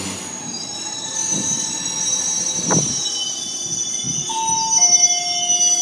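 Senseki Line electric train running into the platform, its wheels and brakes squealing in several high steady tones at once, with lower squeal tones joining about two-thirds of the way through. A single thud about halfway in.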